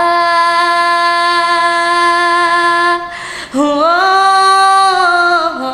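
A female solo voice singing a pop ballad, holding a long steady note for about three seconds, then, after a brief breath, a second long note slightly higher.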